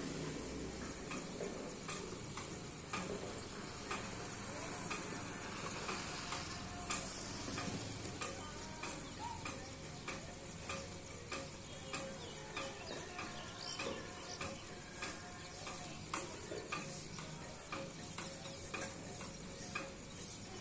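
Outdoor early-morning ambience: a steady hiss with many irregular faint ticks and clicks.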